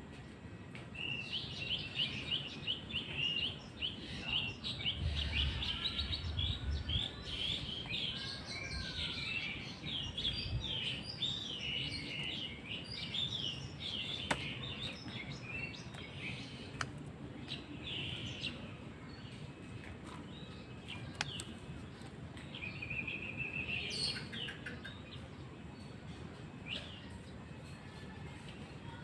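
White-rumped shama singing: a rapid string of varied, quick-changing whistled notes that thins out in the second half, with a short trill near the end.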